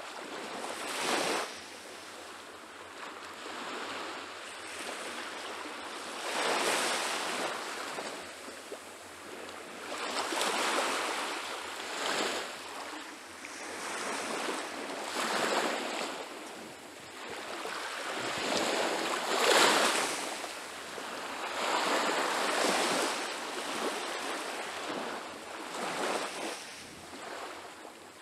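Small Baltic Sea waves washing up on a sandy shore, the surf swelling and fading every three to four seconds.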